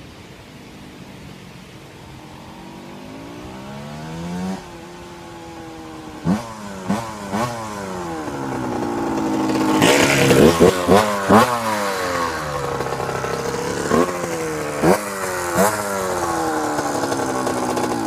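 Honda CR125 two-stroke motocross bike approaching and getting louder, its throttle blipped in sharp revs that rise and fall: a few quick ones about six to seven seconds in, a tight cluster around ten to eleven seconds, and three more near the end.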